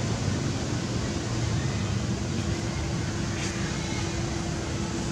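Steady background noise with a faint constant hum and no animal calls.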